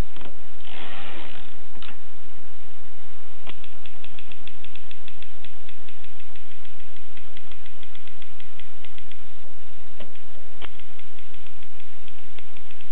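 Colonial Continental manual typewriter mechanism clicking: long runs of rapid light ticks, a short rasping burst about a second in, and a few sharper clacks.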